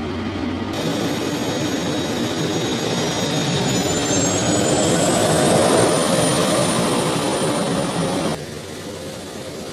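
An RC-135 Rivet Joint's CFM56 (F108) turbofan jet engines running: a heavy rumble with a high turbine whine that rises in pitch over a couple of seconds, as the engines spool up, and then holds. The sound jumps in level abruptly about a second in and drops sharply near the end.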